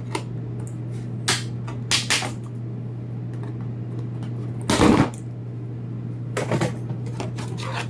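Plastic toy packaging being handled and cut open: scattered clicks and rustles, with one louder burst of rustling about five seconds in, over a steady low hum.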